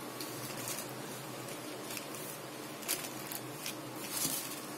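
Black plastic sheet crinkling and rustling as a steel vessel presses a ball of rice-flour dough flat, with a few short crackles in the second half.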